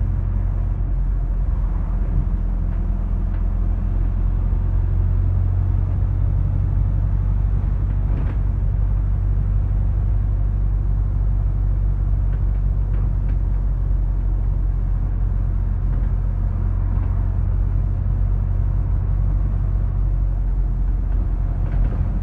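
Interior running noise of a Wright StreetDeck double-decker bus on the move, heard from the upper deck: a steady low rumble of the diesel engine and road noise.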